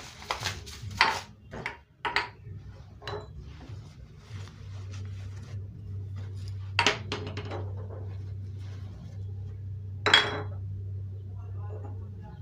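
Kitchenware being handled and set down: a string of separate clinks and knocks of dishes and cutlery, the loudest a ringing clink about ten seconds in. A steady low hum runs beneath from about halfway through.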